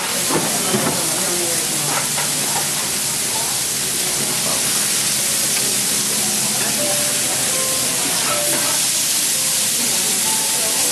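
Kobe beef steaks sizzling on a hot iron teppanyaki griddle, a steady hiss, with a few taps of the chef's knife and fork on the iron plate in the first couple of seconds.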